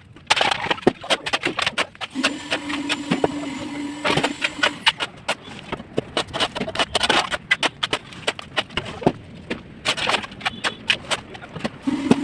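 Irregular knocking and clattering of construction work while a concrete column is filled, with a steady hum that comes in about two seconds in and stops abruptly about five seconds in.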